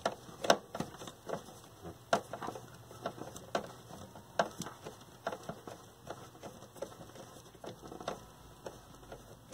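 Irregular small metallic clicks and taps of a hand tool working the quarter-inch nuts that hold a TV's tuner assembly to the chassis.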